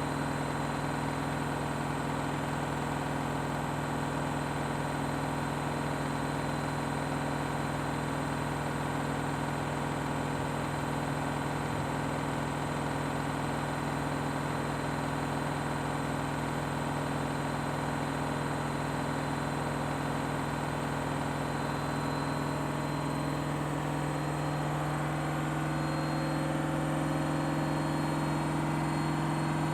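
Washing machine on a 1600 rpm spin cycle, its drum and motor running with a steady hum and whine. After about 22 seconds the tone shifts and it gets slightly louder.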